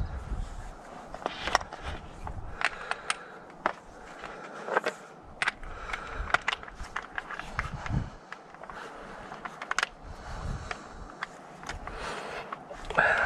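Irregular metal clinks, knocks and scrapes of hand tools working the bolts on an excavator blade's cutting edge, some strikes ringing briefly, with a louder cluster near the end.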